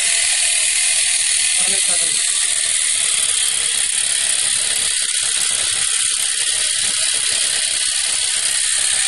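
Small portable electric air compressor running steadily with a loud, even hissing buzz, switched on automatically to reinflate a tyre whose pressure has dropped. It starts and stops abruptly.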